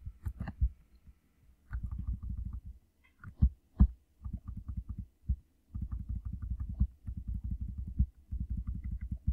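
Runs of rapid, dull clicking from working a laptop's controls, carried through the machine to its microphone while the presentation is stepped back slide by slide. Two louder single knocks come a little over three seconds in.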